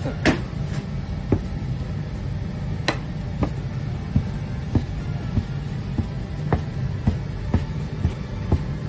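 Steel bench scraper chopping a rope of gnocchi dough, each cut ending in a sharp click on the metal worktop, about two cuts a second, over a steady low hum.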